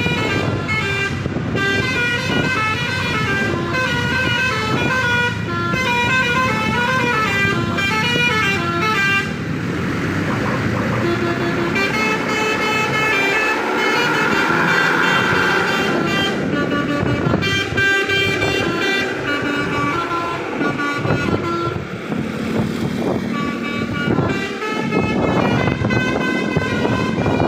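Musical vehicle horns sounding tunes, their pitch stepping up and down in quick notes, with a noisier rush in the middle stretch.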